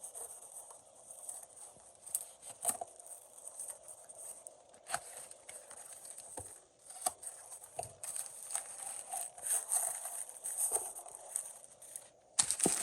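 A cardboard mailing box being opened and its newspaper packing handled: irregular rustling of paper and cardboard with scattered sharp taps and clicks.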